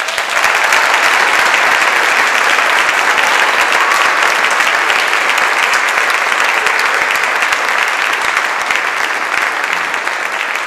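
Audience applauding: dense, steady clapping at a loud level.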